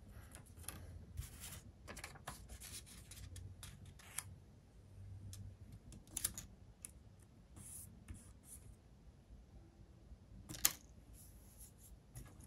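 Faint workbench handling noises: short scratches, rustles and clicks of small plastic model parts and hand tools, with a sharper click near the end.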